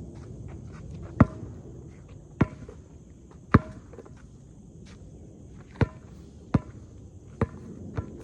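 Basketball being dribbled on a hard court: about seven sharp bounces at an uneven pace, roughly one a second.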